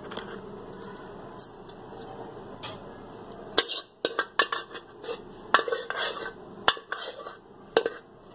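Metal spoon scraping and clinking against a metal cooking pot and a cut-glass dish while thick cooked apricot pulp is scraped out and spread. It is quiet at first, then a quick run of sharp clinks comes in the second half.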